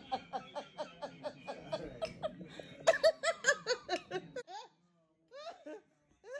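Hearty laughter in rapid high-pitched bursts, each peal falling in pitch. It breaks off about four seconds in, and a few short laughs follow near the end.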